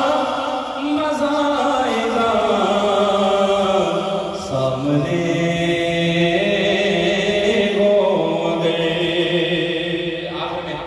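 A man's solo voice chanting devotional verse into a microphone, holding long notes and sliding slowly from one pitch to the next; it trails off near the end.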